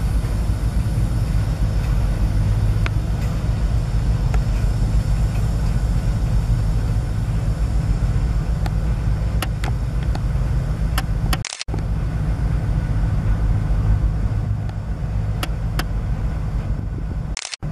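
End-cab diesel switcher locomotive's engine running steadily with a deep low rumble as it pulls slowly away, with a few sharp metallic clicks in the second half.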